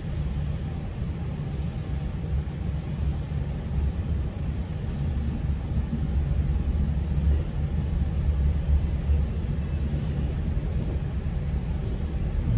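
Steady low rumble of a GO Transit commuter train running on the track, heard from inside the passenger coach, growing a little louder toward the end.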